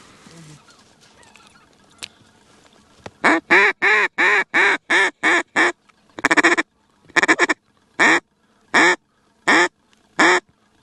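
Mallard duck call blown close to the microphone. About three seconds in comes a quick run of about eight loud hen quacks, then a short chatter, then single quacks spaced less than a second apart.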